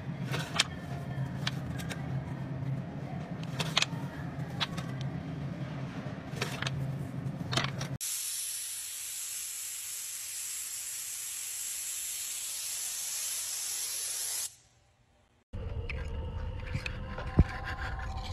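First a low hum with scattered clicks and knocks. About eight seconds in, a spray gun spraying thick wall-texture coating gives a steady hiss that cuts off suddenly some six seconds later. After a second of near silence, clay roof tiles scrape against wet mortar.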